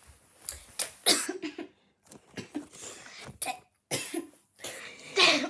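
A child coughing several times in short bursts, the loudest about a second in and near the end.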